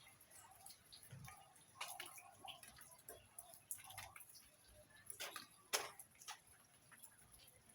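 Faint, irregular drips and ticks of rainwater falling, with two louder ticks about five to six seconds in.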